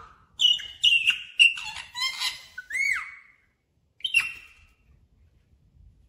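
Rose-ringed parakeet (Indian ringneck) giving a quick run of high chirps and squawky calls, with a whistled note that rises and falls about three seconds in, then one more sharp call after a short pause.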